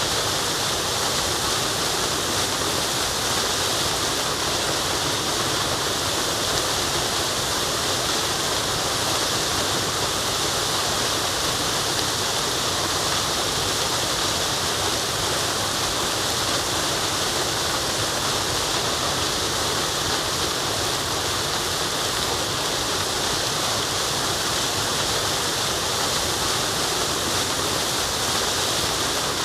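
Waterfall pouring steadily: an even, unchanging hiss of falling water, brightest in the upper range.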